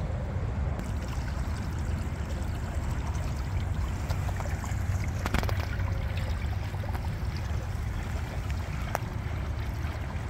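Water trickling through the shallow pools beneath the Pentagon Memorial benches, over a heavy low rumble of wind on the microphone.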